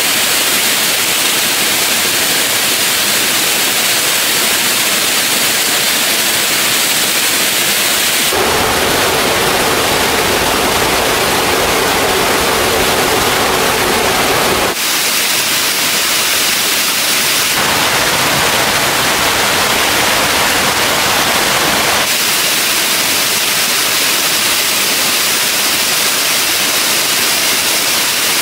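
Rushing water of a mountain stream and waterfall, a loud, steady hiss. Its sound changes abruptly several times, with a heavier rumble for several seconds about a third of the way in.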